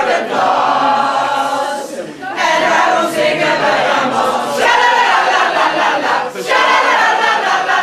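A group of women singing a song together in unison from lyric sheets, loud, with short breaks between lines about two seconds and six and a half seconds in.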